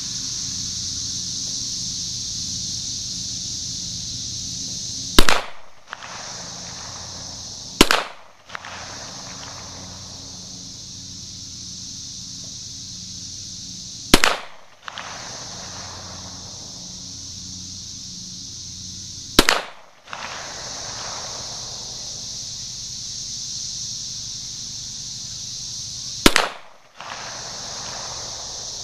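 Five single shots from a Springfield XDM 5.25 pistol chambered in .40 S&W, fired several seconds apart, each with a short echo trailing it.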